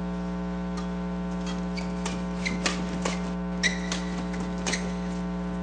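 Badminton rally: about ten sharp clicks of rackets striking the shuttlecock at irregular intervals, over a steady electrical hum.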